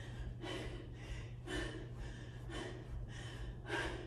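A woman breathing hard in short, even puffs, about two a second, in time with her bicycle crunches, over a faint steady low hum.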